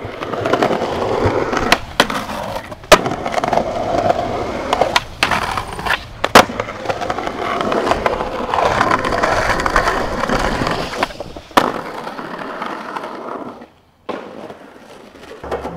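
Skateboard wheels rolling over rough pavement, a steady grinding rumble broken by several sharp clacks of the board. Near the end the rolling cuts out for a moment, then comes back quieter.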